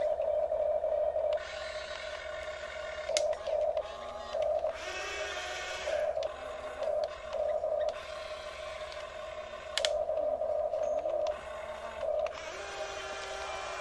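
Electric gear motors of a Huina RC excavator whining as the boom, arm and bucket work, starting and stopping in short spurts, with higher whirring at times and a couple of sharp clicks.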